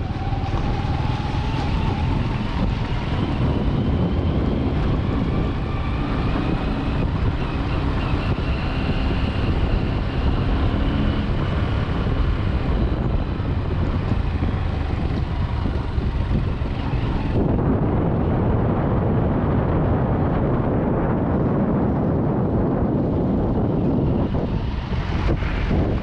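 Motorcycle engine running under way with wind rushing over the microphone; the engine note rises slowly over the first ten seconds or so.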